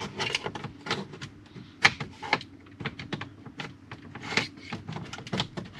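Plastic dash trim panel being worked loose with a small pry tool: a run of irregular plastic clicks and knocks, with a sharper snap about two seconds in.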